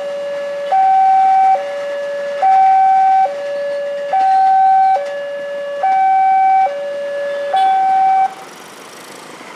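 Railway level-crossing warning alarm sounding its new two-tone signal, a lower and a higher tone alternating evenly, each a little under a second long. It signals an approaching train, and it cuts off about eight seconds in.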